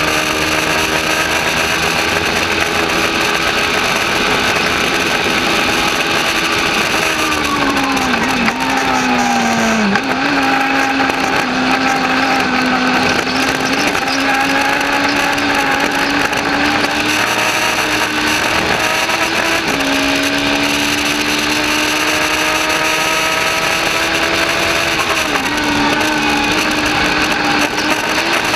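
A Legends race car's Yamaha four-cylinder motorcycle engine running hard on track, heard from inside the cockpit. The engine note falls and wavers about eight to ten seconds in, then holds steady, with two shorter drops and climbs in pitch later on.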